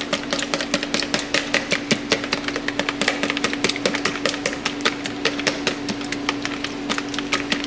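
Raw eggs being whipped in a bowl, the utensil clicking rapidly against the bowl at about five or six strokes a second, over a steady low hum.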